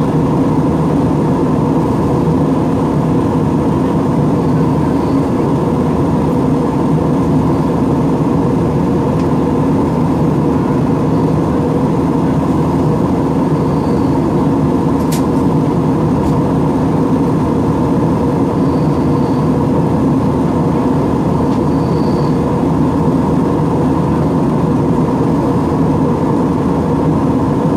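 Steady cabin noise of an airliner in cruise: the drone of the engines and the rush of air past the fuselage, heard from inside the cabin.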